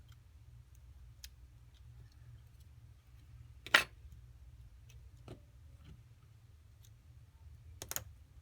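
Scattered light clicks and taps of small tools and iPhone parts being handled during a battery replacement, with a sharper click about four seconds in and a quick double click near the end, over a faint steady low hum.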